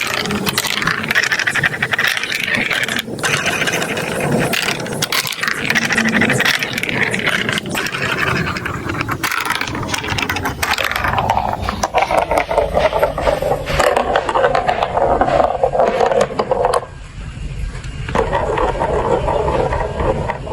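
Plastic marble run pieces clattering and rattling, with scraping and rolling sounds.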